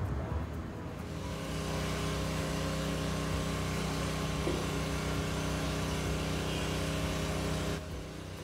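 A steady, machine-like running noise with a low hum, starting about a second in and cutting off suddenly near the end.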